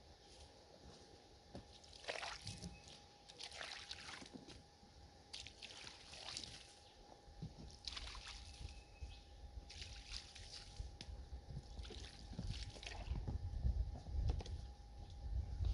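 Water poured from a plastic jug splashing and trickling onto a freshly sawn timber slab, in uneven splashes. A low rumble builds near the end.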